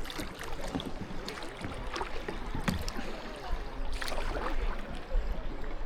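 Kayak paddling on a river: paddle blades splashing and water washing against the hull, in irregular short splashes over a steady watery rush, with a low rumble underneath.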